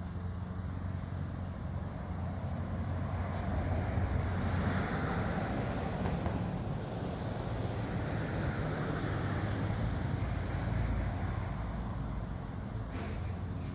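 Motor vehicle noise: a steady low engine hum, with a broader rush that swells for several seconds in the middle and then fades, like a vehicle passing.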